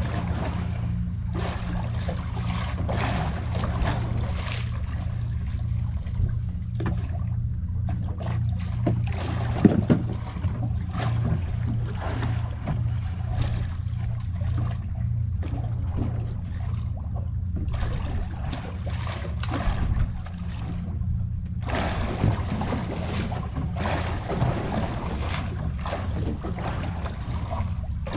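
Boat engine idling steadily, with water splashing and lapping against the hull and gusts of wind on the microphone. A single sharp knock comes about ten seconds in.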